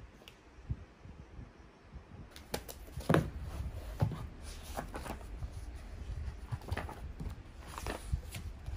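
Paper notebook being handled on a tabletop: pages rustling as they are opened and turned, with irregular soft knocks as the notebook and pen are moved, the loudest about three seconds in and again about four seconds in.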